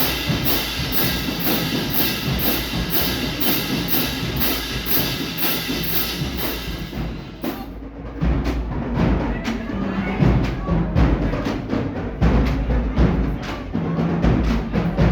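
Marching band playing: brass over a steady cymbal beat, then about halfway through the cymbals stop and a heavier drum-led section with booming low drums takes over.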